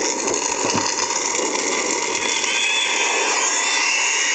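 Lightsaber hum from a Crystal Focus sound board, played through the hilt's speaker. The hum is steady and hissy, then cuts off suddenly near the end.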